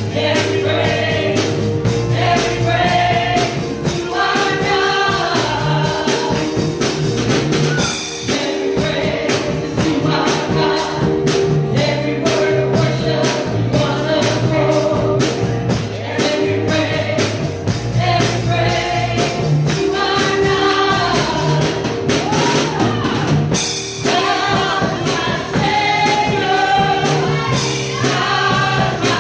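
Gospel music with singing, a choir and a steady beat with tambourine.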